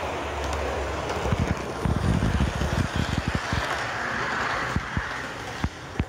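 Ibertren model train running along its track: a steady whirring hiss from the motor and wheels. From about a second in, many irregular clicks and knocks sound over it.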